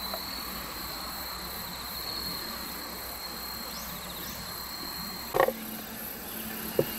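Insects droning in one steady high tone, with two short rising chirps near the middle. A sharp knock comes about five and a half seconds in, and the drone cuts off there. A lighter click follows near the end.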